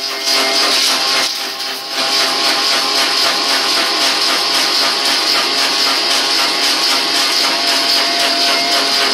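Multi-spindle copy lathe turning wooden pickaxe handle blanks: a steady, loud machine whine with the rasp of the cutter cutting wood. The level dips briefly twice in the first two seconds.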